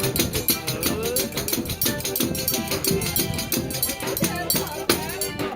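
Forró pé de serra band playing, with a fast, even percussion beat under sliding melodic lines.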